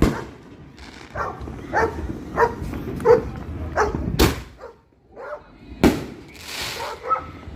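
A small dog barking, a string of short barks roughly every half second or so. Two sharp cracks follow past the middle, then a brief hiss.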